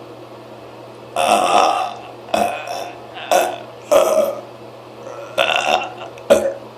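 A person deliberately forcing out loud burps, about six in a row with short pauses between them; the first lasts nearly a second and the rest are shorter.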